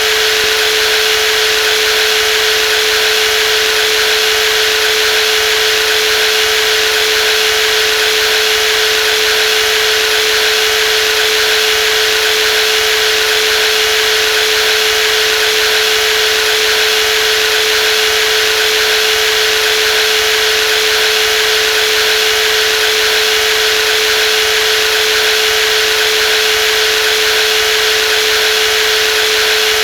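Brushless jigsaw running continuously at a steady speed: an even motor whine with one strong fixed tone over a constant hiss, with no change in pitch or level.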